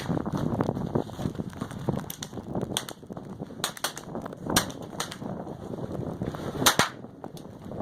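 A string of about eight sharp .22 Long Rifle rimfire shots, irregularly spaced, the loudest a close pair near the end. Wind buffets the microphone throughout.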